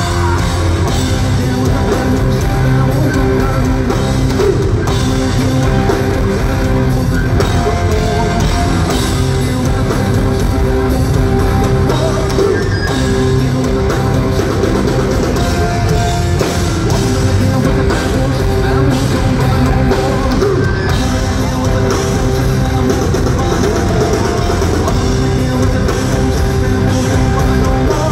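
Rock band playing live on stage, with drum kit, guitar and keyboards, loud and steady throughout, heard from the audience in the venue.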